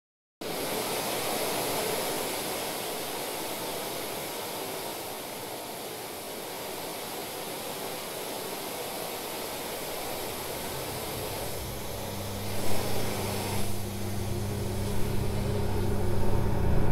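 Ambient film soundtrack that starts abruptly out of silence as a steady rushing hiss; about twelve seconds in, a low droning hum joins and grows louder, with a couple of brief swells.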